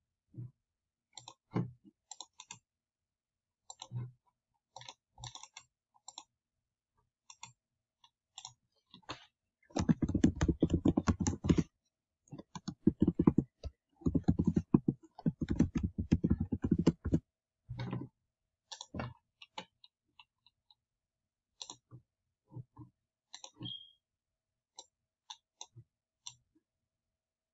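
Scattered computer mouse clicks, with a run of fast keyboard typing in the middle that breaks off briefly and then resumes.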